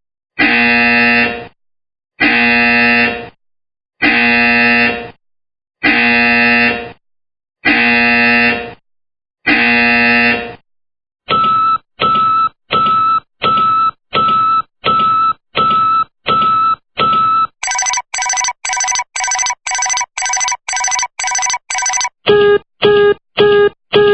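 Electronic warning sounds in four patterns, one after another. First a harsh buzzer blasting for about a second at a time, roughly every two seconds. Then a steady beep repeating about one and a half times a second, then a quicker, higher beeping, and near the end a lower, louder beep about twice a second.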